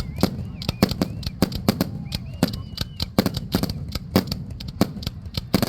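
Aerial fireworks shells bursting in quick, uneven succession, several sharp bangs and cracks a second with no let-up, and a few faint whistles rising and falling between them.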